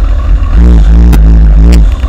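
Motorcycle engine and exhaust running with a few short throttle blips, the pitch rising and falling, recorded very loud and harshly distorted: the Xiaomi Yi camera's microphone overloads on the exhaust sound.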